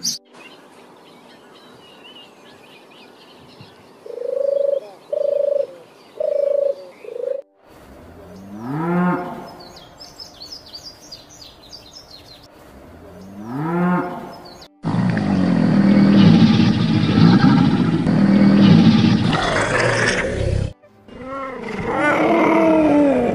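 A run of different animal calls in short clips joined by abrupt cuts: a few short repeated notes, then two rising pitched calls, then a loud harsh stretch lasting several seconds, then more pitched calls near the end.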